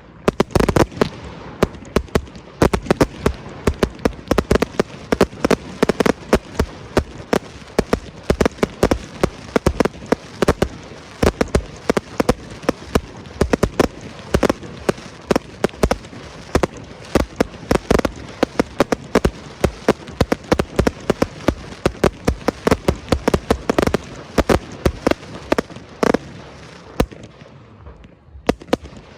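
Aerial fireworks display: a continuous rapid barrage of bangs and crackles, many per second, thinning out near the end.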